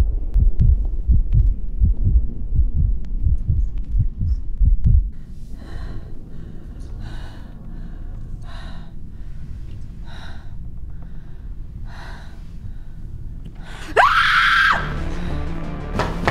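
Horror-film score and sound effects: a low heartbeat-like thumping for about five seconds, then a run of short breathy gasps about every second and a half, then a sudden loud shriek that rises in pitch and holds briefly near the end.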